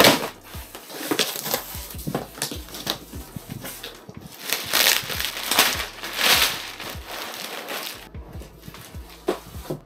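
Cardboard shipping box being opened by hand: a sharp rip at the start, then cardboard flaps and plastic wrapping around foam packing rustling and crinkling in irregular bursts, loudest in the middle as the packed contents are pulled up.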